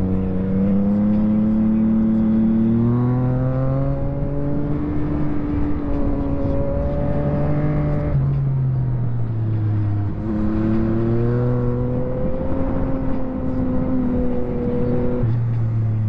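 Yamaha MT-09 SP's three-cylinder engine through a full Akrapovič race exhaust, under way with the throttle opening and closing: the engine note climbs and drops several times with gear changes and speed changes.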